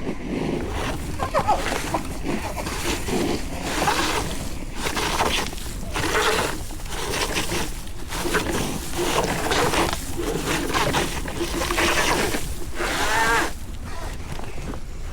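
Footsteps on a dirt trail and heavy breathing while an electric scooter is walked uphill, heard as irregular rough bursts about a second apart.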